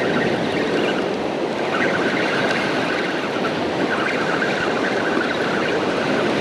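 Ocean surf washing steadily on the beach, with wind on the microphone. A faint high whine comes and goes from about two seconds in.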